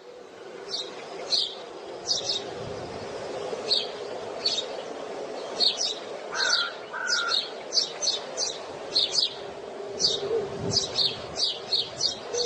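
Small bird chirping: short, high, downward-sweeping chirps repeated again and again, sparse at first and coming faster and closer together in the second half.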